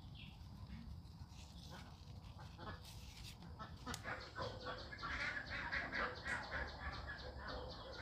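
Ducks calling in a quick run of short quacks that starts about halfway through and keeps going, after a few scattered clicks, over a low rumble.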